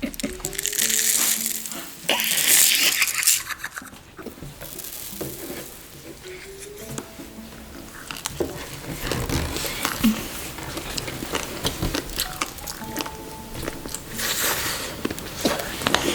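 Background music with bursts of crinkling and crunching, loudest about a second in and again near the end, with scattered small clicks and crackles in between.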